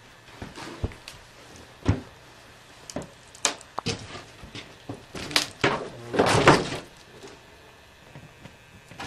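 A series of irregular knocks and thuds, with a short scraping rustle about six seconds in.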